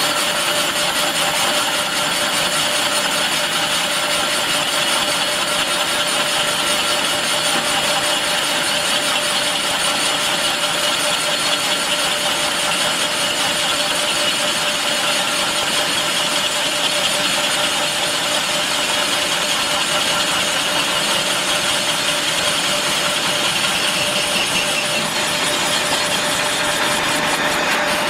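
Facing cutter of a two-head CNC facing machine milling the end face of a cast fire hydrant body: a steady, unbroken cutting noise with a constant whine.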